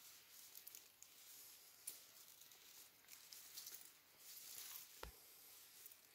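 Near silence with faint rustling of nylon mesh sandal bags being handled, and a single sharp click about five seconds in.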